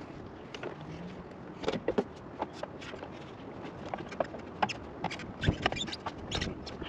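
Irregular clicks, taps and light knocks of roof rack crossbar hardware being handled and fastened on a pickup's roof, some in quick clusters.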